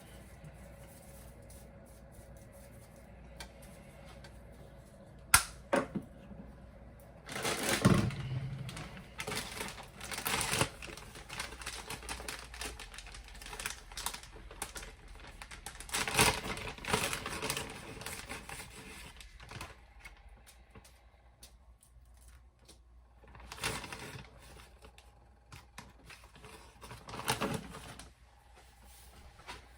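Kitchen handling noises: two sharp clicks, then several short, irregular bursts of clatter and rustling, the loudest about eight seconds in.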